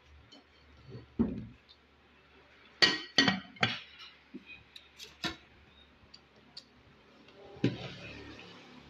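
Eating meat bones by hand at a plate: several sharp clinks and knocks of bones against the plate, loudest in a quick cluster about three seconds in, between softer chewing and mouth noises.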